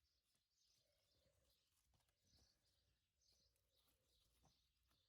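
Near silence, with faint bird chirps about once a second.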